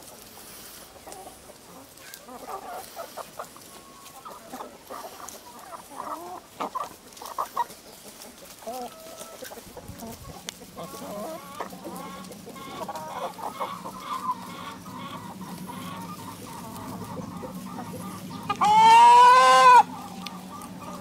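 A flock of chickens clucking on and off with short calls. Near the end one bird, most likely a rooster, gives a single loud crow about a second long that rises at the start and then holds its pitch.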